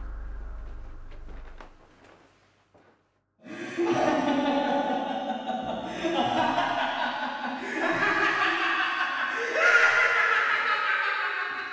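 A low drone fades out to near silence, then about three and a half seconds in loud laughter starts and carries on, rising and falling in pitch.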